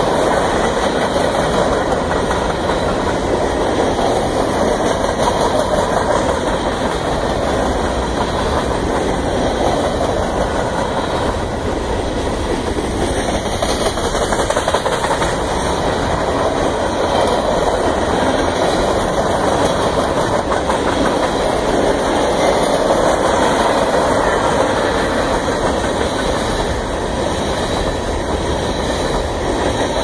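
Freight cars rolling past at close range: a steady rumble of steel wheels on the rails that does not let up.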